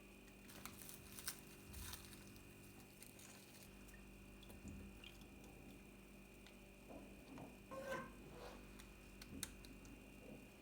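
Near silence: a steady faint hum with scattered light clicks and soft knocks, the clearest about two seconds in and near the end.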